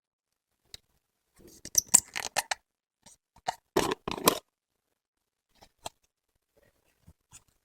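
Slime being pressed and squished by hand close to the microphone, giving clusters of sharp clicks and crackles about two seconds in and again around four seconds, then a few scattered clicks.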